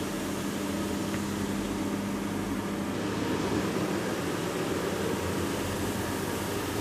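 Dr. Schutz SRP2 floor machine running with a grey pad, sanding down the polyurethane coating of a resilient floor: a steady hum with a low motor tone that drops out about six seconds in.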